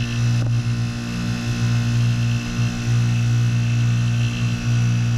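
Hermetic refrigerant compressor of a WaterFurnace geothermal heat pump running with a steady hum, with one brief click about half a second in.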